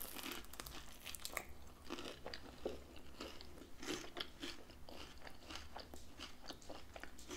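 A person biting into a crispy fried pizza-dough empanada topped with shredded lettuce, then chewing it with many small crunching crackles.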